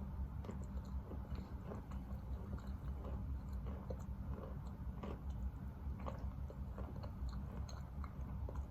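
Close-up chewing of wet Khrapovsky chalk: many small, irregular crunches and wet clicks as the grainy chalk is bitten and chewed, over a steady low hum.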